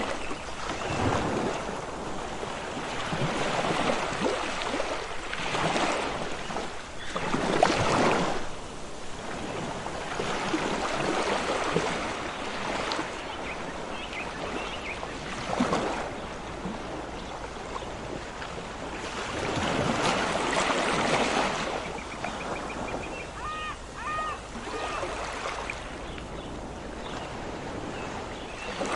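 Ocean waves washing in and breaking, swelling and falling back in surges every few seconds. A few faint short chirps come through late on.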